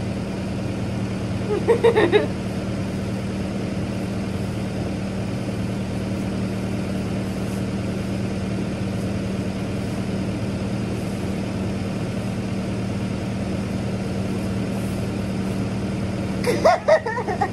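Engine of a farm loader idling steadily, a low even hum.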